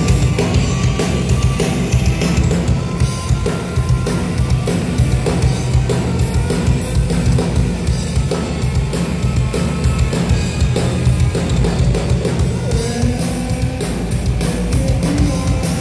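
Visual kei rock band playing live: drum kit and electric guitars over a heavy low end, loud and continuous, in a heavy rock style.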